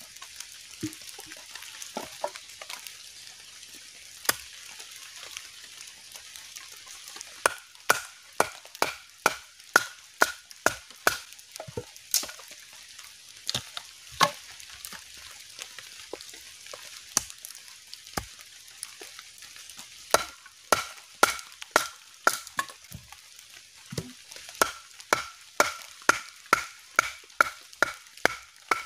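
A blade chopping into a wooden stick to sharpen it into a stake point: runs of sharp strikes about two a second, with pauses between the runs, over a steady hiss.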